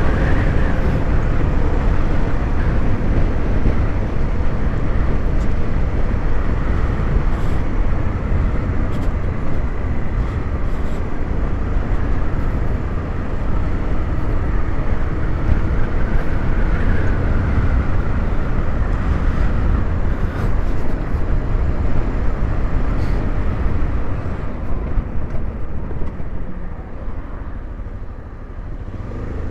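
Honda XRE 300 single-cylinder engine running under way on the road, mixed with wind rushing over the microphone; the sound eases off near the end as the bike slows.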